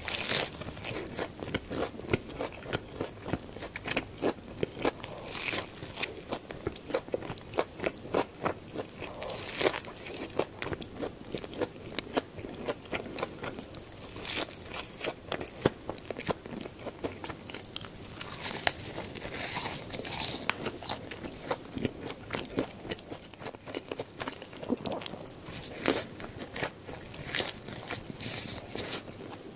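Close-miked bites and chewing of a garlic shrimp burger: a dense, irregular run of sharp crunches, with louder bites every few seconds.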